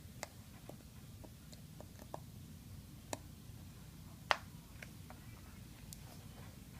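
Scattered small, sharp clicks and taps of a small screwdriver and tiny screws being worked out of an iPhone 5c's internals, the sharpest about four seconds in, over a low steady hum.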